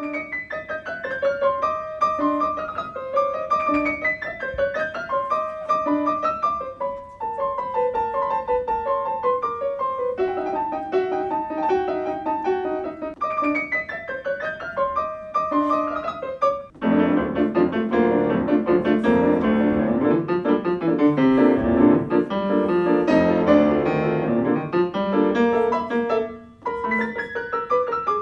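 Grand piano playing a repeating broken-chord figure, which thickens into fuller, louder chords about two-thirds of the way through and drops back to the lighter figure near the end.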